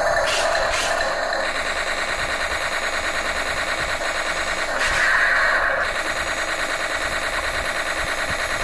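Toy RC tank's built-in sound effect playing through its speaker: a looped electronic tank engine sound, steady, with a louder stretch about five seconds in.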